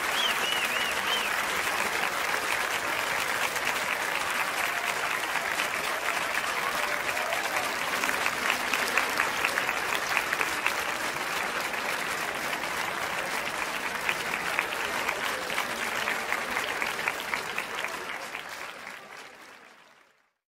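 Large crowd applauding, a dense steady clapping that fades out near the end.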